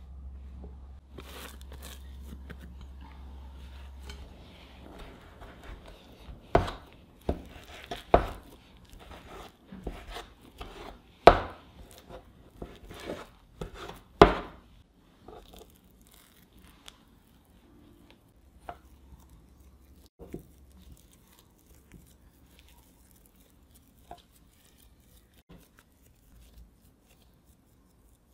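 Plastic knife cutting through soft yeast dough and knocking on a wooden board: a run of sharp knocks through the middle, the loudest a few seconds apart. Before and after, only soft, faint handling of the dough.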